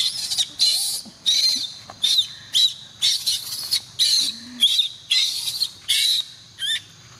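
Baby macaque squealing in short, high-pitched shrieks, about two a second, while an older juvenile monkey grips it: distress cries.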